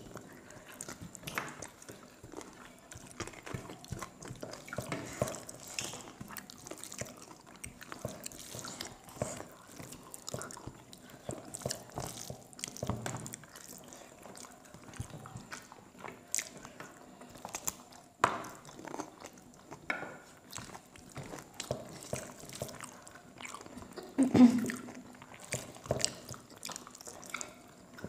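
Close-miked chewing and biting as people eat chicken curry and rice by hand, including biting meat off chicken bones: an irregular run of small clicks and mouth noises. One louder short sound comes near the end.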